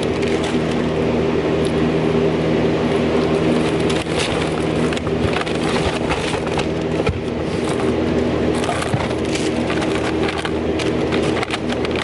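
Steady low hum under constant close crackling and rustling, the handling noise of plastic-wrapped groceries being jostled right beside the microphone.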